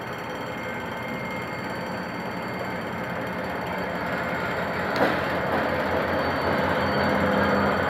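GM GT22CW-2 diesel-electric locomotive's EMD 645 two-stroke diesel engine working as it pulls a passenger train away from a station, growing steadily louder as it comes closer. A single sharp clack about five seconds in, with a low rhythmic throb after it.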